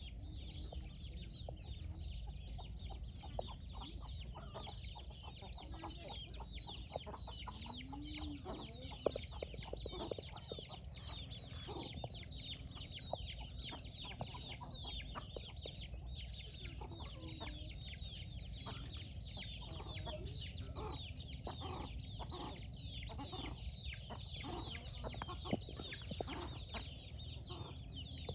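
A flock of chickens, hens and half-grown chicks, calling while foraging. There are many short, high, downward-sliding peeps throughout, with lower hen clucks now and then, over a steady low rumble.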